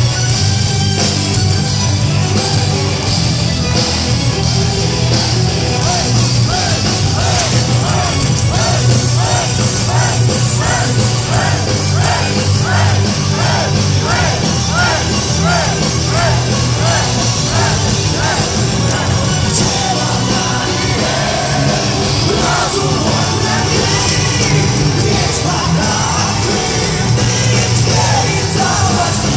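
Live heavy-metal band playing loudly: distorted guitars, bass and drums. Through the middle a lead line repeats short rising-and-falling phrases.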